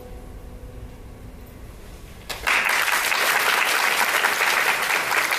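A pipa's last note rings and fades away, then audience applause breaks out about two seconds in and carries on, greeting the end of the pipa solo.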